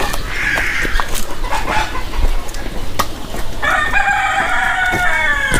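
Free-range desi chickens clucking, and a rooster crows once, a long call of nearly two seconds starting about two-thirds of the way in.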